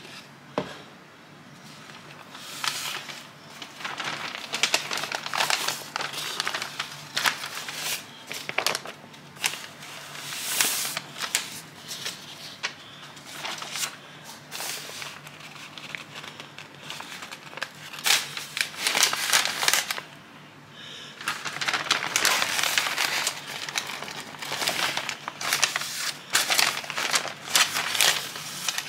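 Pink butcher paper rustling and crinkling as it is folded and pressed around a smoked brisket to wrap it partway through the cook. It comes in irregular bursts, with a short pause about twenty seconds in.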